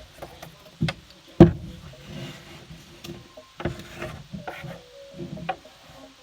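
Irregular handling noises: knocks, thumps and rubbing, the loudest about a second and a half in, with a short squeak near the end.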